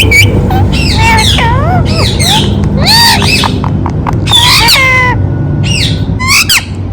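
Indian ringneck parrot calling loudly: a quick run of shrill squawks and swooping whistled notes that rise and fall in pitch.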